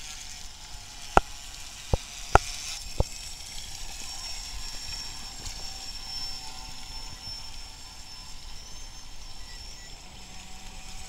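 Thin, high, steady whine of a radio-controlled model boat's battery-powered electric motor running on a 7.4-volt pack, over a steady hiss of water. A few sharp clicks in the first three seconds.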